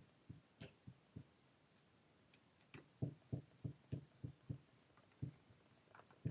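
Screwdriver working the cable clamp screws into a drill's plastic housing: a run of soft clicks and knocks, settling into about three a second around the middle.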